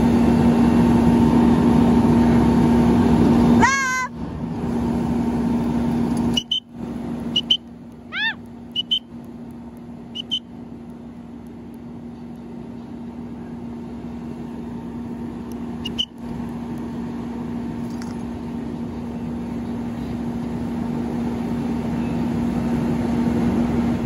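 Fire engine pumping a water stream with a loud, steady hum and hiss that drops away suddenly about four seconds in. After the drop come a few short bird calls that rise and fall in pitch, over a quieter hum that slowly grows louder again.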